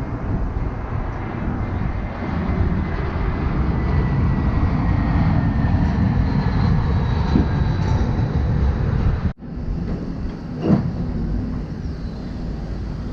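Small motorcycle engine running on the move, with heavy wind rumble on the microphone and a faint whine that slowly falls in pitch. There is a short break about nine seconds in.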